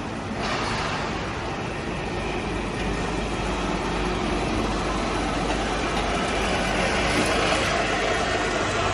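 Continuous carbonization furnace plant running under test: a loud, steady rushing noise over a low hum, a little louder from about half a second in.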